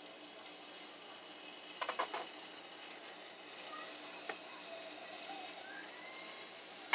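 Pancake batter sizzling faintly in a hot pan, the hiss slowly growing louder. A few light clicks come about two seconds in, with a single tick a little later and a sharp click at the very end.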